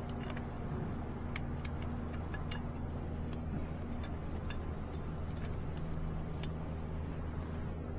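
Steady low mechanical hum with a handful of sharp light clicks and taps scattered through it, from parts and clips being handled and fitted during reassembly.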